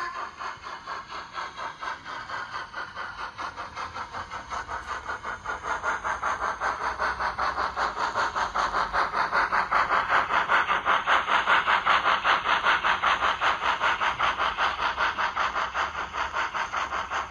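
Sampled three-cylinder exhaust beats of an LMS Jubilee Class 4-6-0 steam locomotive, played through an ESU LokSound decoder's speaker in a model locomotive. It chuffs steadily at about four to five beats a second, growing louder as the model passes close and dropping away at the very end.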